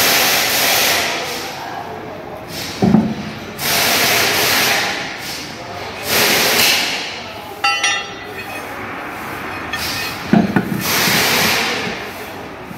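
Heavy truck tyres on steel rims being handled by hand: two dull thuds as a wheel is set down, about 3 s and 10 s in, and a ringing metal clink near 8 s, among repeated bursts of hiss.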